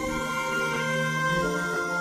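Instrumental music with long held notes; the melody moves to a new note about one and a half seconds in.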